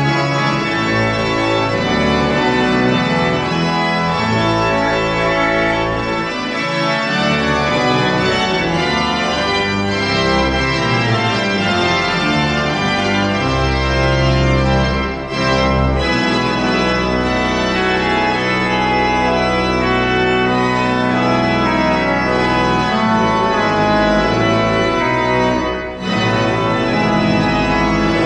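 Church pipe organ played as an improvisation: sustained full chords over deep bass notes, with two brief breaks in the sound, one about halfway through and one near the end.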